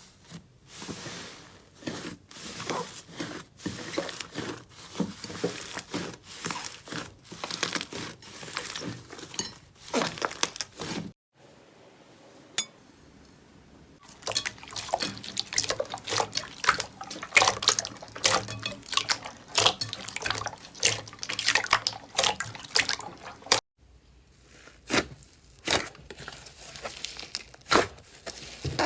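Slime being squished and pressed by hand, making dense runs of wet clicks and pops. The runs break off twice: a quieter stretch about eleven seconds in, and a short drop later on.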